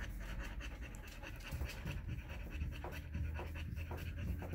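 A dog panting quickly and steadily with its mouth open.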